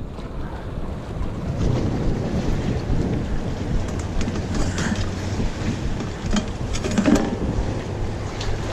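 Wind buffeting the microphone in a steady low rumble, with a few light knocks about five and seven seconds in.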